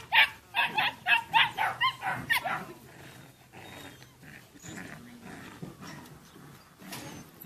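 A puppy barking in a quick run of about eight short, high yips over the first two and a half seconds, then only faint, scattered sounds.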